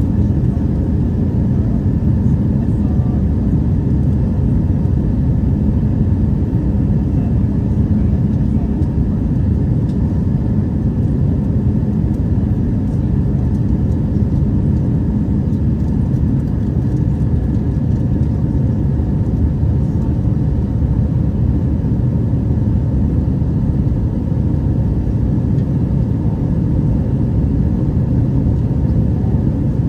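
Steady low cabin noise of an Airbus A320 in its climb after takeoff: engine noise and airflow as heard inside the cabin by the wing, even throughout with no changes.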